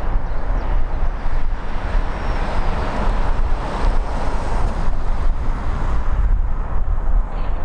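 Airbus A320's CFM56 jet engines at taxi power, a steady distant rush, with wind buffeting the microphone as a constant low rumble.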